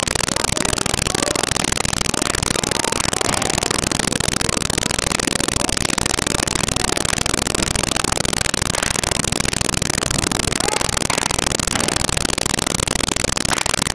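Loud, steady rushing noise with no distinct events in it: a poor-quality, noise-swamped recording.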